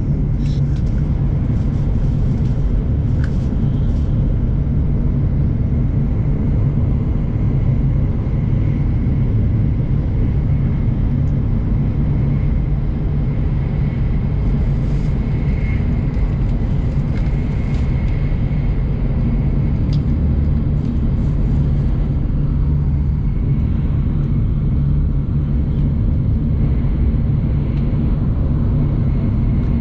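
Shinkansen bullet train running at speed, heard from inside the passenger cabin: a steady, unbroken low rumble.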